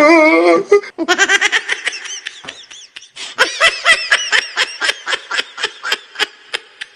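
Laughter: rapid, choppy bursts of laughing that run on after a brief voice at the start.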